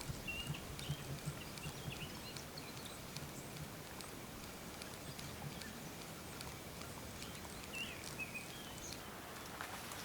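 Small birds chirping in short scattered calls over a steady outdoor background, with a few faint ticks and taps. The chirps bunch in the first few seconds and again near the end.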